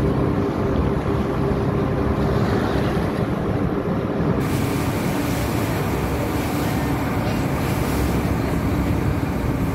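Passenger boat under way: its engine running steadily under the rush of water churning along the hull, with wind buffeting the microphone.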